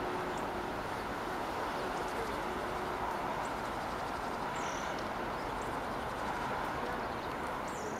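Steady outdoor rumble with no clear single source, broken by two short, high bird chirps, one about halfway through and one near the end.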